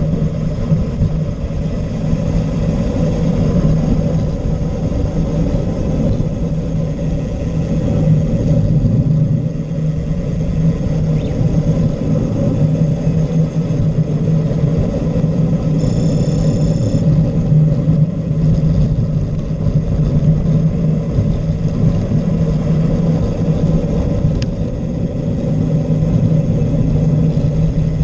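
Car engine running at a steady, moderate pitch under heavy road and wind noise while driving at speed. A short high-pitched tone sounds briefly about sixteen seconds in.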